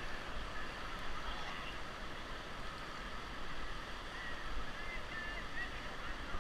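Steady rush of whitewater river water around a raft, with low wind buffeting on the microphone.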